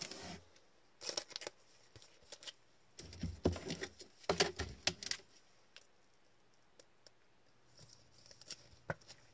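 A trading card being slid into a plastic sleeve and a rigid top loader: short bursts of plastic rustling and scraping in the first half, then a quiet stretch and a single light click near the end.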